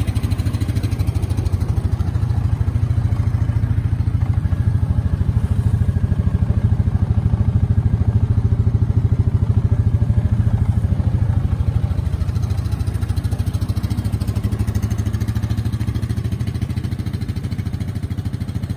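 Yamaha Viking VI 700 side-by-side's single-cylinder engine idling steadily.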